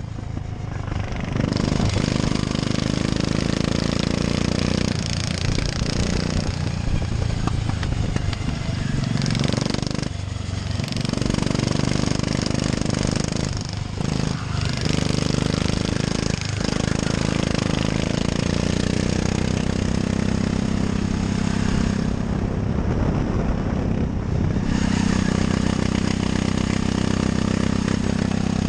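A 13 hp go-kart engine running hard, heard from on board the kart, its note dipping briefly several times as the throttle is lifted and picking up again, and running fuller and lower near the end.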